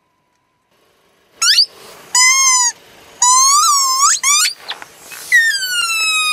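Soft plastic pumpkin squeaky toys squealing as a car tyre rolls over and flattens them, air forced out of their squeakers: about five loud squeaks, the last one long and falling in pitch.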